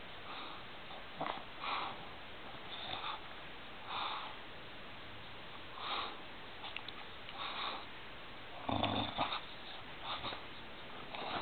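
A dog chewing on a sandal, with soft, irregular sniffing and chewing sounds every second or so and a few small clicks.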